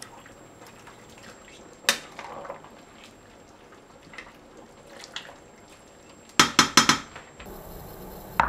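A plastic spatula stirring a thick cabbage and meat stew in a large stainless steel pot, with occasional knocks against the pot, then a quick run of about six sharp knocks near the end.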